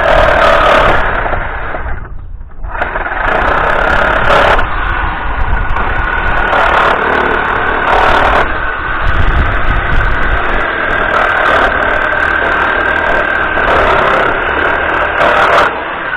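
Power tool motor running steadily on pallet wood, with a short stop about two seconds in.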